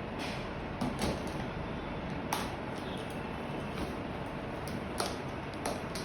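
Scattered light clicks and knocks of laptop packaging being handled during unboxing, over a steady background hiss.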